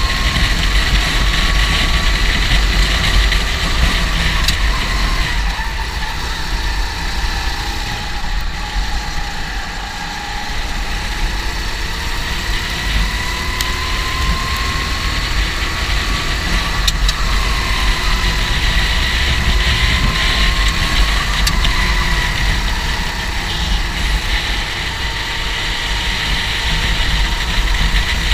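Go-kart engine running at high revs throughout, its pitch dropping and climbing again several times as the kart slows and accelerates, over a heavy low rumble.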